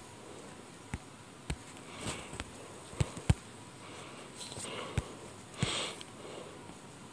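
Scattered light taps on a tablet's touchscreen while drawing, about seven sharp clicks at uneven intervals with two close together around the middle, and a few short soft hissing noises in between.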